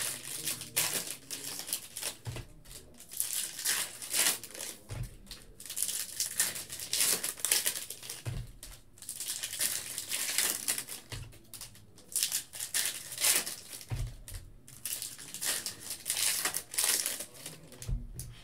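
Foil trading-card pack wrappers crinkling and tearing open in repeated bouts, with cards being handled, and a few soft thumps on the table in between.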